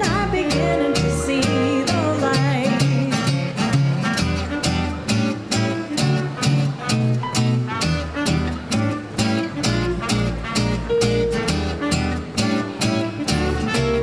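Small swing band playing live: rhythm guitar and upright bass keep a quick, steady beat, with piano, saxophone and trumpet over it.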